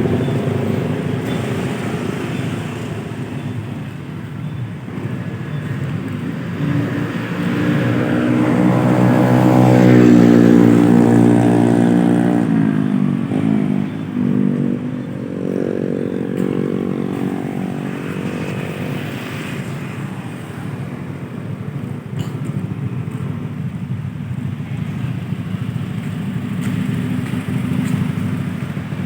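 Honda Scoopy scooter's single-cylinder engine running while being warmed up, revved twice. The pitch climbs about 8 seconds in, peaks and drops back, then rises again more briefly a few seconds later before settling.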